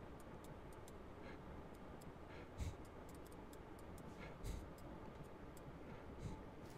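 Faint, irregular clicking from computer input while editing: mouse clicks and keys. Three of the clicks are a little louder, about two seconds apart.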